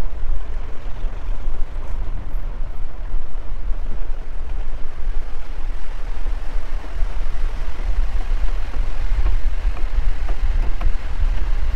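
Moving car heard from a camera held out of its window: a steady deep rumble of wind buffeting the microphone over the car's road and engine noise.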